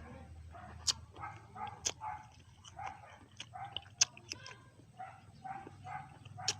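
A dog barking and yipping repeatedly, about two short barks a second, with a few sharp clicks among them.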